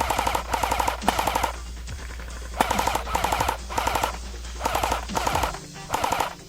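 Airsoft electric gun fired on full auto in about nine short bursts, each a rapid buzzing rattle of a third of a second, with a pause of about a second after the first few.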